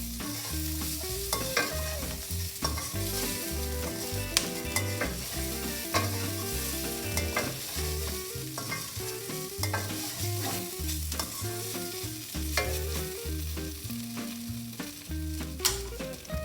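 A spatula stirring and scraping food in a hot pan of oil, with a steady sizzle of frying and repeated sharp clicks of the utensil against the pan. A quiet, low musical backing runs underneath.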